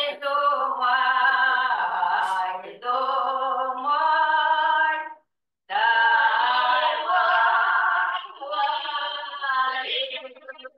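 Field recording of a Ukrainian village wedding song, sung unaccompanied by women in long held phrases with short breaks between them. Near the end the sound breaks up and cuts in and out.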